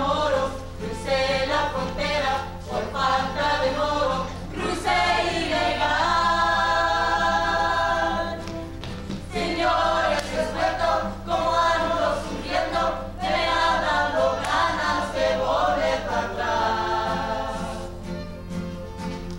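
A small group of voices singing together in chorus, with some long held notes, over a steady low hum.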